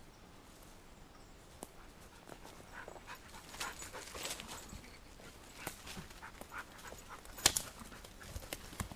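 Footsteps crunching and rustling through leaf litter and twigs on the forest floor, with a bird dog moving through the brush close by. The irregular crackles grow busier after the first couple of seconds, and a sharp snap about seven and a half seconds in is the loudest sound.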